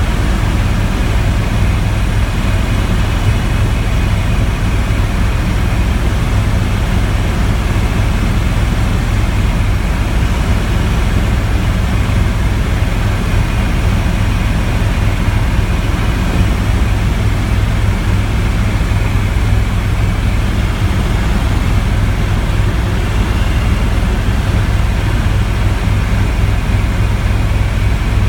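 Helicopter in flight, its engine and rotor running steadily as a loud, unbroken low rumble.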